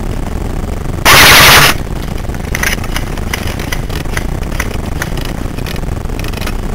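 Airsoft guns firing: a loud, distorted burst about a second in, then scattered single shots. Steady low rumble of handling and wind noise on a gun-mounted camera's microphone runs underneath.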